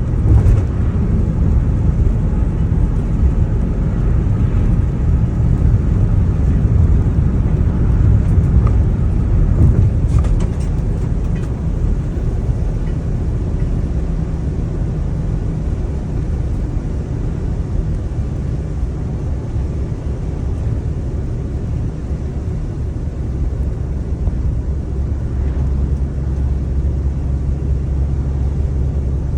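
A car being driven, giving a steady low rumble of engine and road noise.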